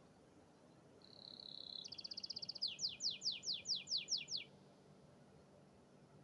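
Domestic canary singing one lively phrase. A held whistle swells in volume, breaks into a fast trill, then runs into about eight quick downward-sliding notes.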